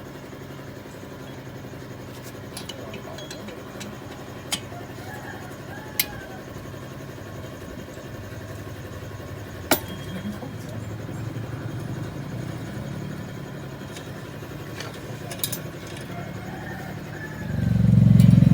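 A motorcycle engine runs steadily in the background, with a few sharp metallic tool clinks. Near the end a much louder engine rumble swells up.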